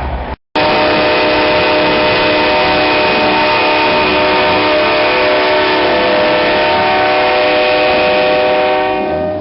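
Truck-mounted multi-chime train horn sounding one long, steady blast of several notes at once, starting abruptly about half a second in and fading near the end.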